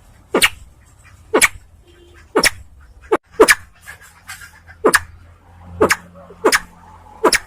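Crested fireback pheasant ('sempidan biru') giving a run of short, sharp calls, about one a second, a few coming close together.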